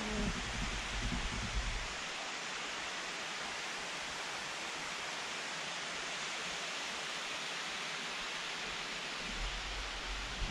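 Steady rushing of a waterfall, an even hiss of falling water that does not change. A low rumble sits under it for the first two seconds.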